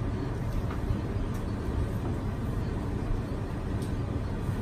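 Steady low rumble of background noise, with a few faint, brief clicks.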